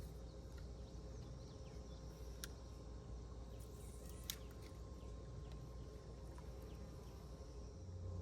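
Faint outdoor ambience: a steady drone of insects, with two sharp small clicks, about two and a half and four seconds in.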